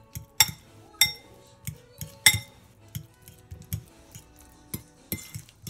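Metal fork mashing avocado in a ceramic bowl, its tines clinking against the bowl in an irregular run of about eight sharp clinks.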